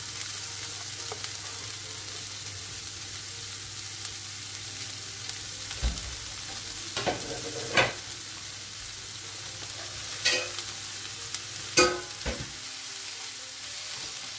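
Shredded cabbage, carrot and capsicum sizzling in a little oil in a nonstick frying pan, sautéing with onions and green chillies. A few sharp knocks and scrapes of a wooden spatula against the pan come in the second half as the vegetables are tossed.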